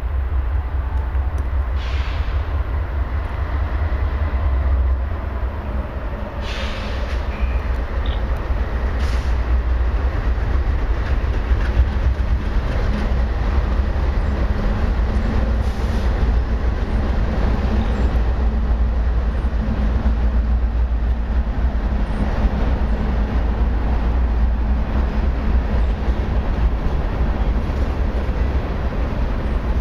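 Norfolk Southern freight train passing over a bridge: the diesel locomotives' engines and the steel wheels on the rails make a steady, heavy low rumble, with a few brief sharp clanks.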